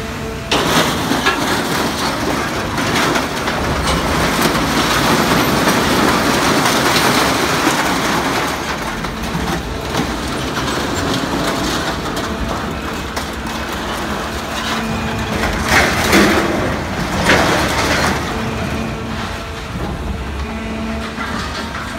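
Steel scrap clanking, scraping and crunching as the orange-peel grab of a stationary material handler crane digs into a scrap pile and lifts a load, over the crane's steady drive hum. A couple of sharper metal clanks come about three-quarters of the way through.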